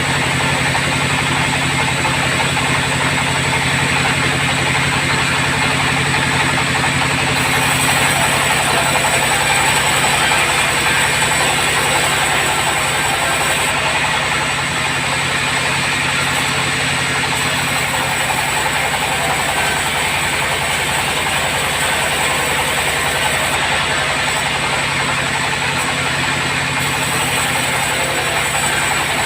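Sawmill bandsaw running steadily with a continuous low drone, while a high hiss comes in and drops away a few times.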